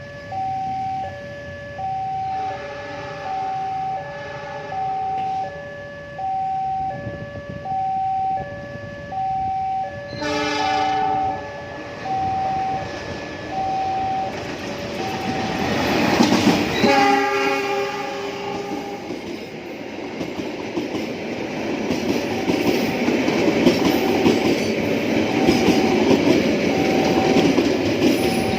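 A level-crossing warning alarm repeats a two-tone chime about once a second. A train horn blows briefly about ten seconds in and again, a little longer, about seventeen seconds in, while the train's rumble and wheel clatter build up and stay loud as it passes.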